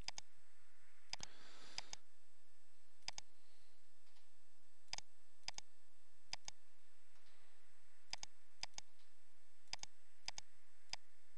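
Computer mouse button clicks, about a dozen scattered through, several in quick press-and-release pairs, over a faint steady hiss.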